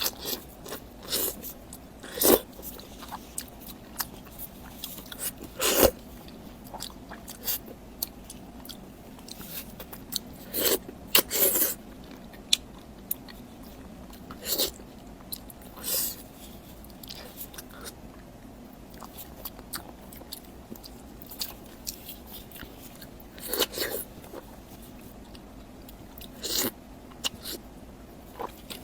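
Close-miked eating: crisp bites and crunches at irregular intervals, with chewing in between.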